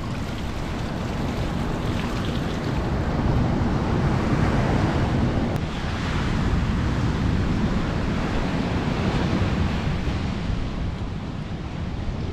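Steady rushing of strong wind buffeting the microphone, mixed with surf breaking on the beach, swelling slightly midway.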